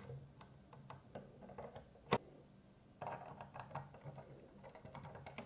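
Small metal clicks and light clatter of steel CPU-cooler mounting brackets being handled and set down onto the standoffs around the socket, with one sharper click about two seconds in.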